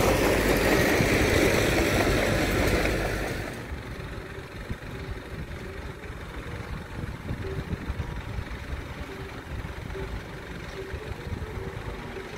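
Diesel engine of a Mitsubishi BD2J crawler bulldozer running close by; about three and a half seconds in the sound drops to the quieter, steady engine of a small dump truck moving slowly some distance away.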